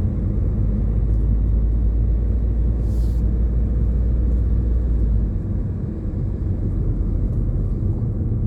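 Road and engine noise inside a moving car: a steady low rumble, with its deepest part easing off about five seconds in.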